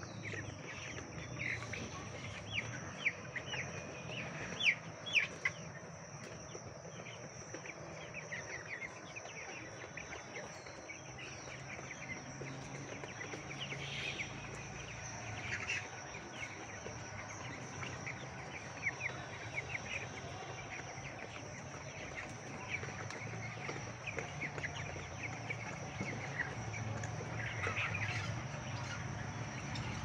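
A large flock of young broiler chickens peeping and chirping, many short high calls overlapping one another.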